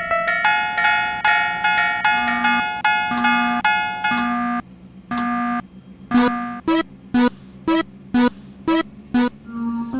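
Bright, jingly electronic tune. A repeated note pulses about twice a second, then after a short break about halfway in, short bouncy notes follow, some sliding in pitch.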